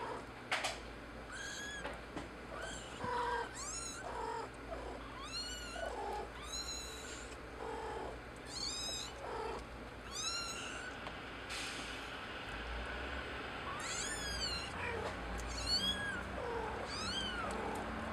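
Young kittens mewing: about a dozen short, high-pitched cries that rise and fall, some overlapping, with a few lower calls in between. A sharp click comes just after the start.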